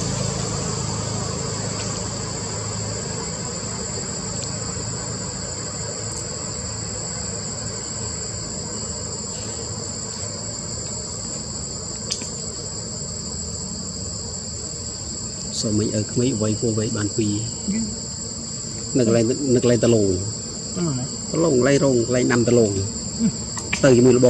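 Steady, high, unbroken drone of an insect chorus. In the last third a low voice sounds in four short phrases, louder than the insects.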